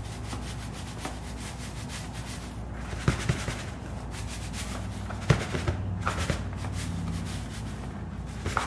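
Dry cornmeal mix pouring from a paper bag into a large mixing bowl: a steady granular hiss with the bag rustling, and a couple of sharper clicks from the bag or bowl about three and five seconds in.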